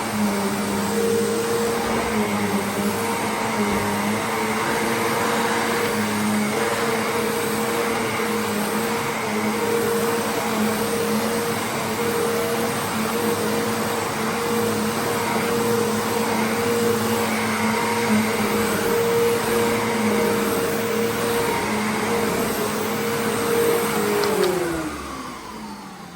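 Electrolux The Boss bagless upright vacuum cleaner running steadily with a constant motor hum and hiss. Near the end it is switched off, and the motor's pitch falls as it spins down.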